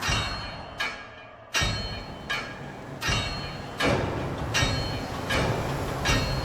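Dark cinematic music: heavy percussive hits about every three-quarters of a second over a low rumble, building in loudness.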